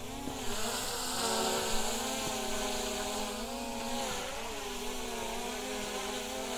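DJI Mini 3 Pro quadcopter's propellers buzzing close by as it hovers and comes down to land, the whine wavering in pitch as the motors adjust speed.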